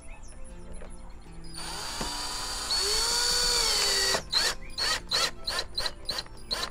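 Power drill driving a screw. It runs steadily for about two and a half seconds, its pitch rising and then sagging, then gives a series of short bursts, about three a second, as the screw is seated.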